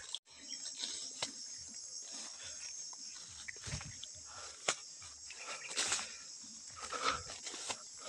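Insects chirring steadily at a high pitch, with leaves and stems rustling and a few sharp clicks as someone pushes on foot through undergrowth.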